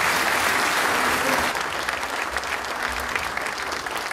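Audience applauding, many people clapping at once, the applause slowly dying down.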